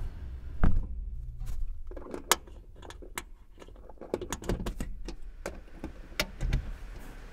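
Lid of a top-loading electric kiln lowered shut with a heavy thump about a second in, followed by a run of sharp metallic clicks and knocks at the kiln's rim as it is secured.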